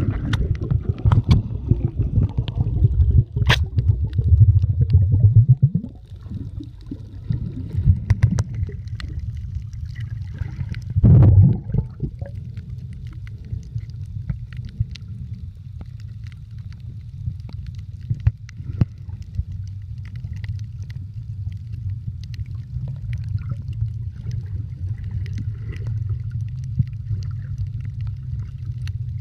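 Muffled underwater sound picked up by a submerged camera: a steady low rumble of moving water, with heavy surges for the first six seconds and again briefly about eleven seconds in, and scattered faint clicks throughout.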